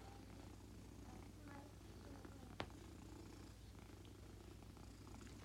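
Tabby cat purring faintly and steadily while its chin and cheek are rubbed, a sign of contentment. A single sharp click about two and a half seconds in.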